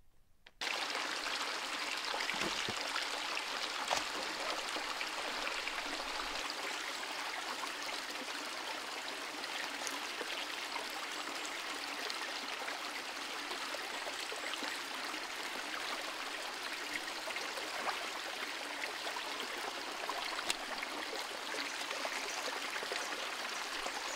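Mountain stream running steadily over rocks, an even rush of water that starts abruptly just after the start.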